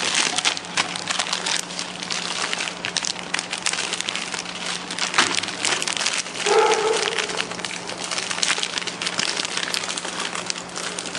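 Clear plastic packaging film crinkling and crackling without a break, over the steady low hum of an instant-noodle pillow-bag packaging machine running. A brief pitched sound stands out about six and a half seconds in.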